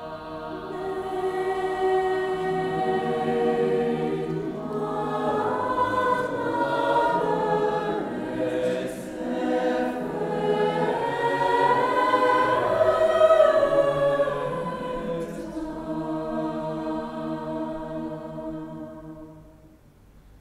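Mixed choir singing slow, sustained chords. The sound swells to its fullest about two-thirds of the way through, then dies away near the end.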